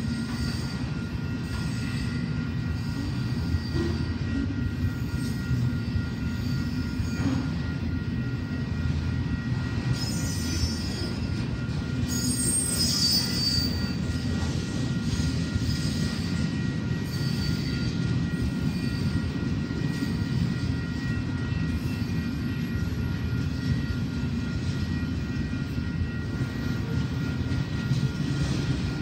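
Freight train of autorack cars rolling past: a steady low rumble of wheels on rail with a thin, high wheel squeal throughout, and a couple of sharper squeals about a third and nearly halfway through.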